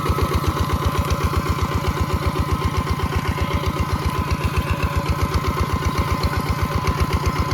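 M350 mini tractor's engine running steadily with an even, rhythmic low beat of about eight pulses a second.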